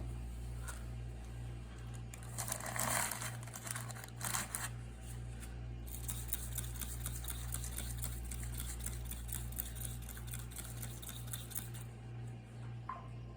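A steady low hum with a faint even pulsing, and soft rustling and brushing noises, loudest about two to three seconds in and again briefly after four seconds.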